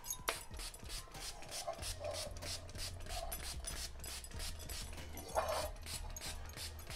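A hand-held trigger spray bottle pumped over and over in quick short squirts, about three or four a second, misting cleaner onto a steel pot. A sharp click comes just after the start, and a few short muffled sounds rise over the spraying, the loudest about five and a half seconds in.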